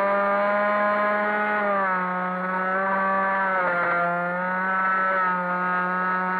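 Multiplex EasyStar 3's electric motor and pusher propeller, heard from the onboard camera, whining steadily in flight. The pitch dips slightly about two seconds in and again around four seconds, as the throttle or airspeed changes.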